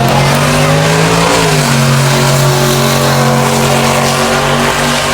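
Drag race car engine held at high, steady revs, dropping in pitch about a second and a half in and then holding again.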